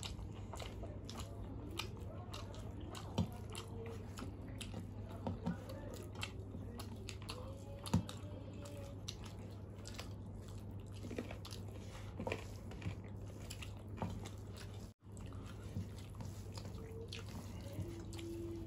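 People eating rice and curry by hand, heard as close-miked chewing with scattered small clicks over a steady low hum.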